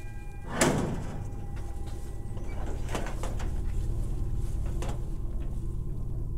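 A metal sliding door is pulled open by its handle. It gives one loud clank about half a second in, then a couple of lighter knocks over a low steady rumble.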